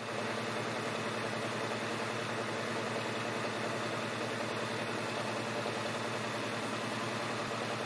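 Cooling fans of powered-up Crown MacroTech 9000i power amplifiers running, a steady rush of air with a low hum underneath.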